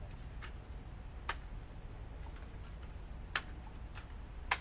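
A .177 caliber multi-pump pellet gun being pumped up: a few sharp clicks from the pump lever, about one to two seconds apart, charging the gun for a shot.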